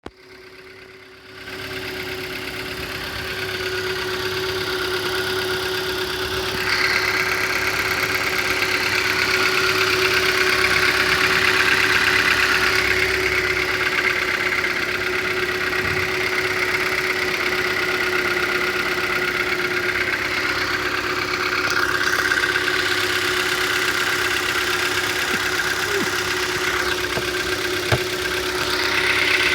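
2012 Hyundai Elantra petrol engine running steadily at idle with a knock, which the owner links to a recent fill-up of fuel.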